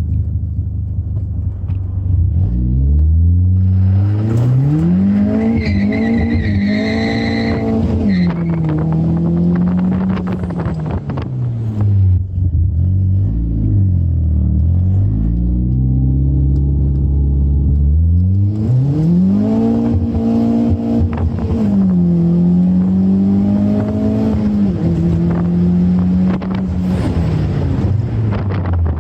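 Turbocharged Toyota 1ZZ-FE four-cylinder engine in a 2000 Celica GT revving up and down: the pitch climbs about two seconds in, holds, falls back, then climbs again twice more. A brief high whine rides on top as the revs peak around six to eight seconds in.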